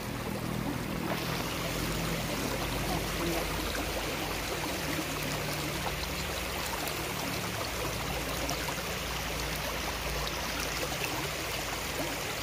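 Small river flowing fast over rocks, a steady even rush of water that grows brighter and fuller about a second in.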